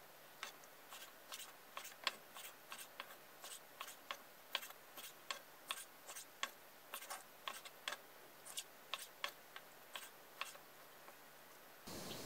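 A chef's knife chopping squid into rings on a wooden cutting board: a run of light knocks, about two or three a second, as the blade goes through the flesh onto the board. Just before the end a steady hiss starts, from a wok on the heat.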